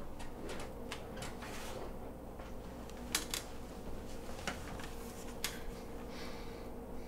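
A hardcover book being handled and leafed through: a few sharp paper snaps and a short rustle of pages near the end, over a faint steady electrical hum.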